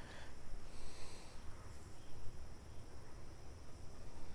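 Faint, steady insect trill with a low rumble underneath.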